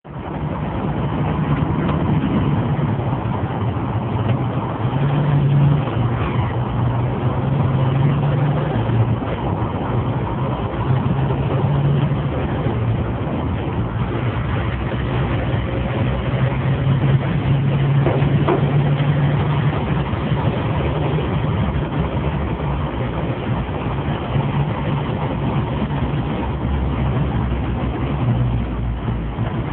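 Steady engine and road noise of a moving vehicle, heard from inside the cabin: a continuous low drone under a haze of tyre and traffic noise.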